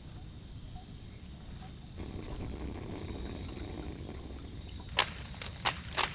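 Wind rumbling on the microphone, stronger from about two seconds in, under a steady high chirring of night insects. Near the end a quick run of sharp knocks starts.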